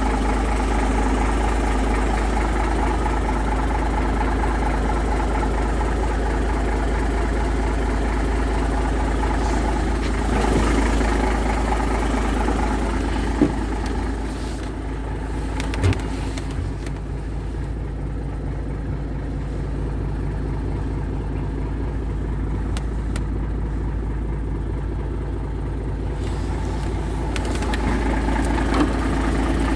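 Cummins diesel engine of a Sisu SM 300 truck idling steadily, with a couple of short knocks midway.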